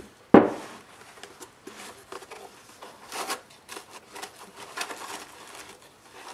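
A geared stepper motor is set down on a cork board with a single solid knock about a third of a second in. Then come scattered rustling and scraping as hands pull another motor out of its foam packing insert.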